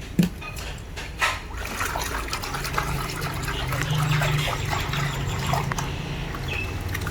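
Bath water trickling and splashing, with two sharp knocks near the start.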